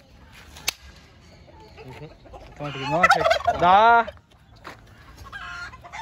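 An animal calling loudly twice in quick succession, about three seconds in, each call with a strongly wavering pitch.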